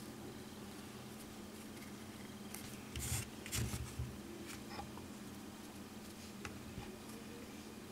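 Faint handling sounds of fingers rolling and twisting a strip of wicking cotton and working it at a rebuildable atomizer's coil: a few soft rustles and light clicks, clustered about three to four seconds in, over a low steady hum.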